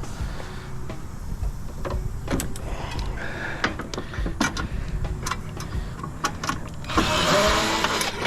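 Metal parts of a PTAC unit being handled during teardown: scattered clicks and knocks, then a louder whirring for about a second near the end from a small power tool.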